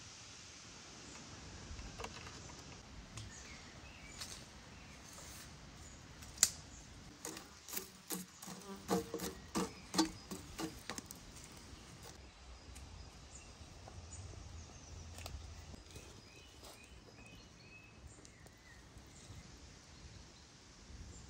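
Burnt charcoal embers in a metal mangal grill being poked and spread with a stick, giving a cluster of sharp clicks and knocks near the middle over a faint steady outdoor background.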